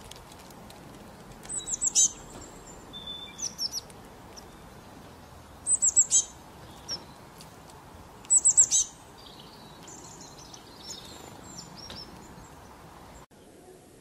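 Small songbirds calling: three loud bursts of four or five quick, very high notes that each sweep downward, about two, six and eight and a half seconds in, with softer chirps and twitters between.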